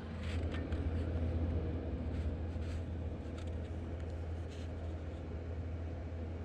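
Steady low hum with faint scattered clicks and rustling of handling noise.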